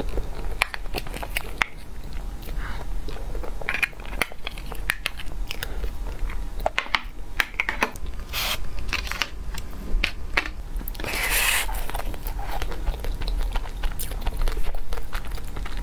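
Close-miked eating sounds of a soft creamy dessert and then a fried pastry: wet chewing, lip smacks and small mouth clicks, with a short rustling, tearing burst about two-thirds of the way through.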